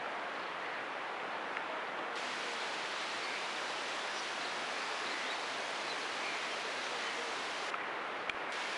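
Steady, even outdoor hiss with no distinct source standing out, and a few faint ticks.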